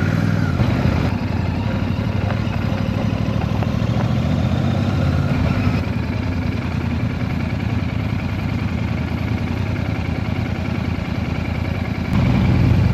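Motorcycle engine running steadily at low revs, getting louder near the end.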